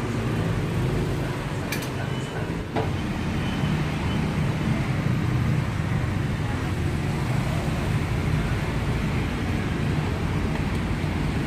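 Steady low rumble and hiss of running gas burners under crepe griddles mixed with street traffic, with a few sharp clicks about two seconds in.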